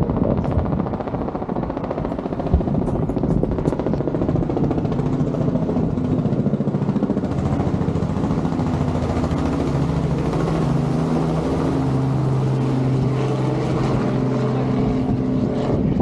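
A motor vehicle's engine running steadily under dense noise: a low hum that settles into a steadier, clearer pitch about seven seconds in.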